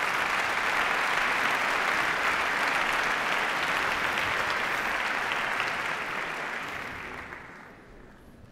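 Auditorium audience applauding, steady at first, then dying away over the last couple of seconds.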